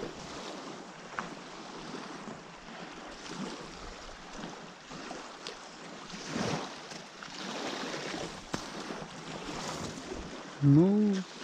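Steady outdoor noise of wind on the microphone with a few faint knocks. Just before the end comes one short call that rises and then falls in pitch, the loudest sound here.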